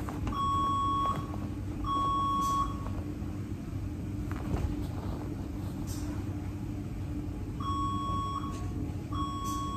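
An autoclave going off: two pairs of steady, high electronic beeps, one pair at the start and one near the end, over a continuous low machinery hum. The sterilization wrap rustles softly as it is folded around the tray.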